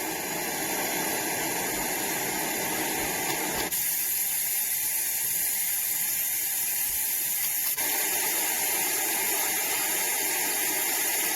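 Magicteam sleep sound machine skipping through its built-in noise tracks: a steady hiss from its speaker that switches abruptly to a brighter, thinner hiss about four seconds in and back to a fuller one about four seconds later, with a faint click at each track change.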